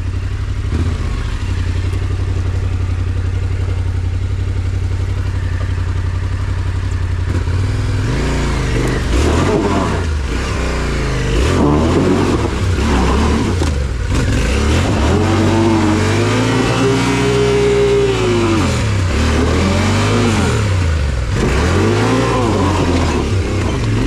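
Yamaha Ténéré 700's parallel-twin engine running at a steady low speed for several seconds, then revving up and down again and again, with one longer rise and fall about two-thirds of the way through.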